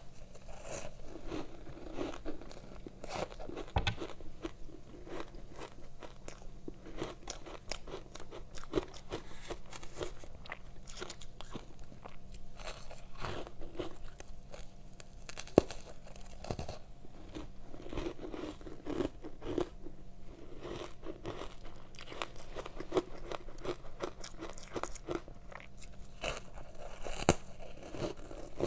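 Close-up crunching and chewing of soft, powdery ice coated in matcha powder, bite after bite, with a dense, irregular crackle.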